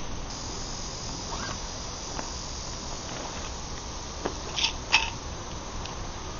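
Steady insect chirring in the background, broken by a few light clicks and taps.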